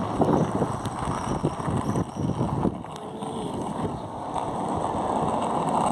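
Cruiser skateboard's wheels rolling over street pavement, a steady rough rumble, with wind buffeting the microphone.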